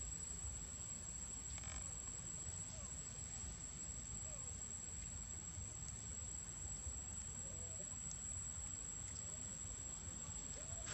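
Outdoor ambience: a steady, high-pitched insect drone over a low rumble, with a few faint short calls in the distance.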